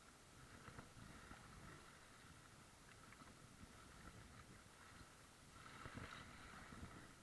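Faint strokes of a wooden paddle in choppy river water and water rushing past a kayak's hull, with a brief swell of splashing about six seconds in.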